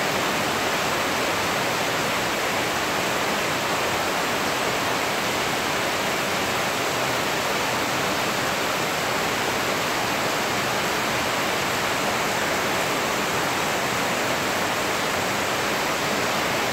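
Steady rain falling on a wet paved street and rooftops: an even hiss that neither swells nor breaks.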